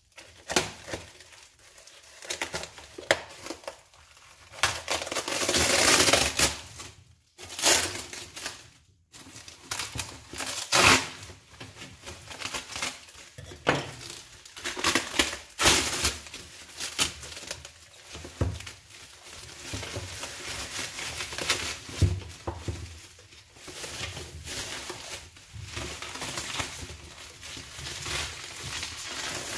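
Bubble wrap crinkling and packing tape tearing as a parcel is unwrapped by hand, in irregular rustles and rips that are loudest about five to seven seconds in.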